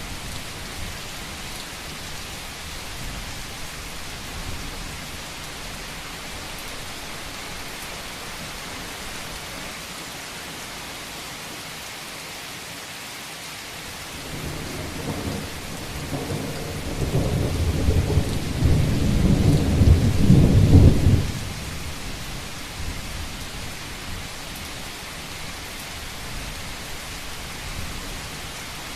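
Steady rain falling on a roof, with a low roll of thunder that builds about halfway through, grows into the loudest part, and dies away fairly quickly a few seconds later.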